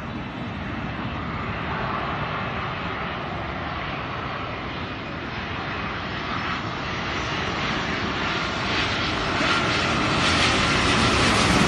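Twin-engine widebody jetliner on final approach to land. Its engine noise grows steadily louder as it comes closer, and a whine comes through near the end.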